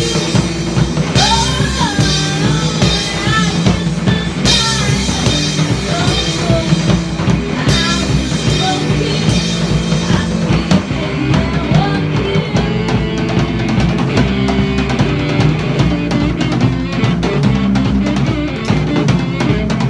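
Live rock band playing, with electric guitar, bass guitar and drum kit. A woman sings into a microphone through roughly the first half, and the band carries on instrumental after that.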